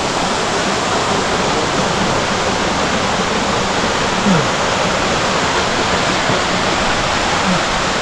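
Waterfall pouring, a steady rush of falling water.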